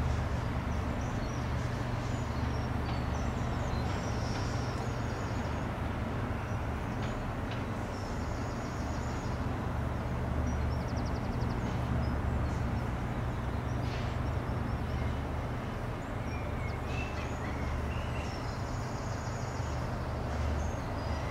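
Steady low engine drone from distant harbour and rail machinery, with small birds chirping in short bursts several times over it.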